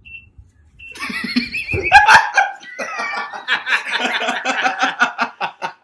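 People laughing, starting about a second in and going on as a quick run of repeated laugh pulses.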